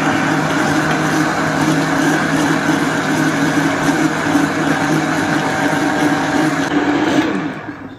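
Countertop blender motor switching on suddenly and running steadily while blending a sauce as oil is drizzled in through the lid opening; it winds down with a falling pitch about seven seconds in.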